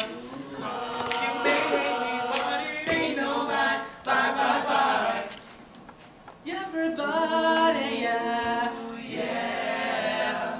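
A group of young male voices singing a boy-band pop song in close harmony, unaccompanied. The singing drops away briefly about halfway through, then comes back fuller.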